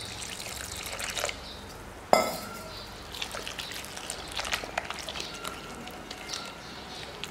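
Water poured into a glass bowl of rice-flour batter, followed by a wire whisk stirring the wet batter with many light clinks against the glass. About two seconds in there is one sharp, loud clink.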